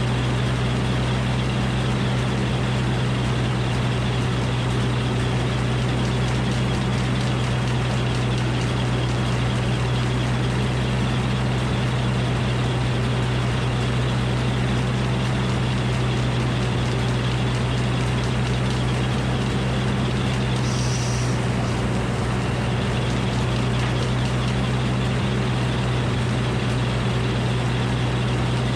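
Engine powering a Frick circular sawmill running steadily, with a strong even low hum and no change in load. A short faint hiss comes about three-quarters of the way through.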